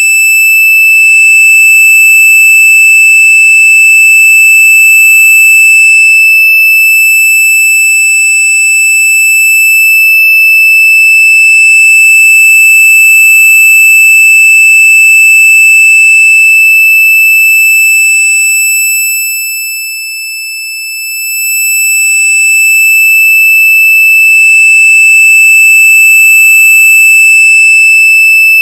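A loud, steady, high-pitched electronic tone held at one unchanging pitch. It dips briefly in loudness about two-thirds of the way through, then comes back up.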